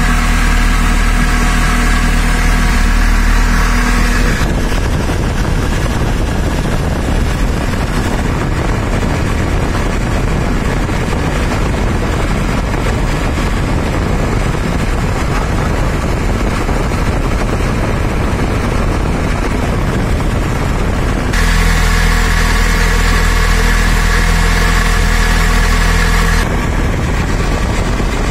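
Four-cylinder gasoline engine running at idle during an ignition timing check. It has an even hum for the first few seconds and again from about 21 to 26 seconds, and a rougher, noisier sound in between.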